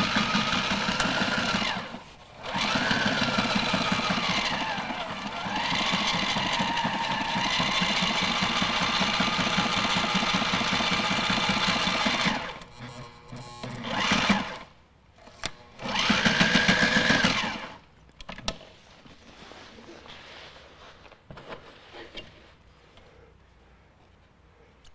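Electric sewing machine stitching marine canvas, its needle pounding in a fast, even rhythm as the motor speeds up and slows down. It runs in a long stretch with a short pause about two seconds in, then two short bursts past the halfway mark, and ends on quieter handling with a few light clicks.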